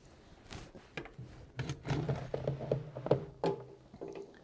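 Handling noise from a handheld camera moved about under a van: scattered knocks, taps and scuffs, with a low hum through the middle.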